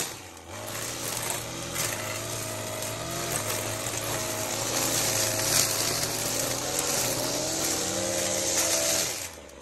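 A power string trimmer cutting through dense weeds and ground cover, its motor whine wavering up and down as it bites into the growth. The motor is let off near the end and the sound falls away sharply.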